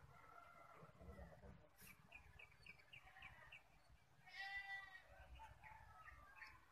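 Faint animal and bird calls: a run of quick, short chirps about two seconds in, then a louder, brief pitched call a little past the middle.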